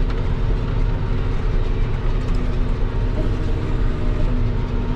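John Deere tractor's diesel engine running steadily under load while pulling a plough through the soil.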